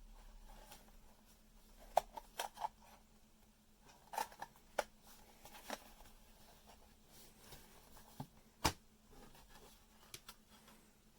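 Faint scattered clicks and taps, about ten in all and the sharpest about two seconds in and near the end, over a low steady hum.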